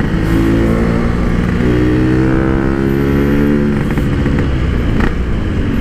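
Yamaha RX-King two-stroke single-cylinder motorcycle engine running while being ridden, through a PK1 packing-type exhaust silencer that makes it quiet. The engine note rises gently over the first few seconds, then drops back.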